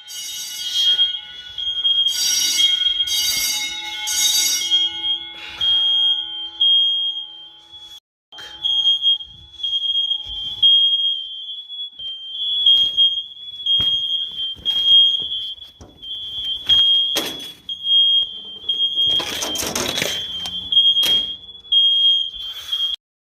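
Residential smoke alarms sounding, set off by smoke from burnt food: a loud, high-pitched tone broken by short gaps. A harsher sound with many overtones joins it for the first few seconds, and a brief rush of noise comes near the end.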